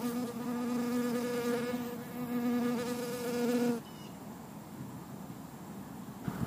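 Honeybee buzzing in flight close by, a steady hum with a slight waver, that cuts off suddenly about four seconds in as the bee lands to feed.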